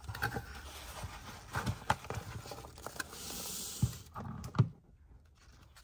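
Light irregular taps and clicks as foam packing peanuts and a foam sheet are handled and lifted out of a cardboard mailer box, with a brief scratchy rub about three seconds in.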